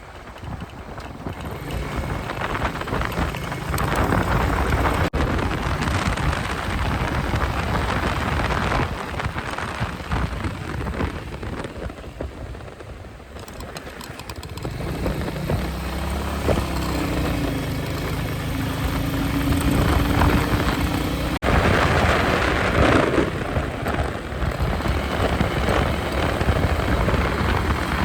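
Royal Enfield Meteor 350's single-cylinder engine and exhaust under way at road speed, with heavy wind rushing over the microphone. The level drops briefly about twelve seconds in and then builds again.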